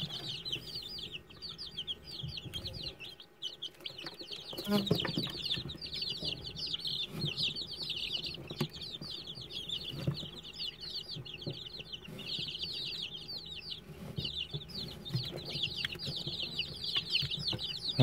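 A brood of Aseel chicks, about ten to twelve days old, peeping without pause: a dense chorus of many overlapping high, quick, falling cheeps.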